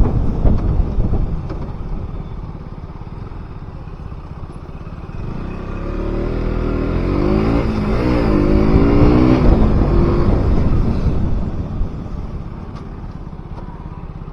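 KTM RC 200 single-cylinder sport bike engine under way. It is loud at first and eases off after about two seconds. From about five seconds in it accelerates with a rising pitch, dips briefly as it shifts up, rises again, then backs off the throttle near eleven seconds.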